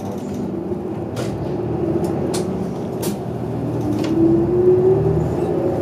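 Inside a city bus while it is driving: steady engine and road noise, with a drivetrain whine that rises slightly in pitch about four seconds in as the bus picks up speed. A few sharp clicks or rattles sound over it.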